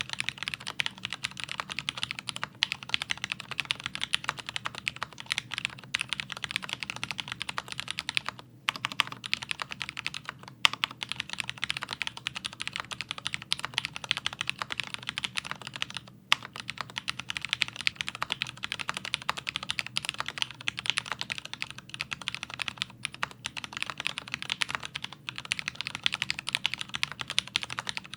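Fast, continuous typing on a Leopold FC650MDS mechanical keyboard with Cherry MX Speed Silver linear switches, lubed with Krytox, giving a steady stream of key clacks. The typing pauses briefly about eight and sixteen seconds in.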